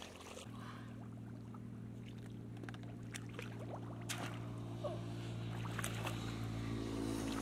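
A low, steady engine drone that grows slightly louder, with a few short splashes and knocks of water as a bamboo fish trap is handled in shallow muddy water.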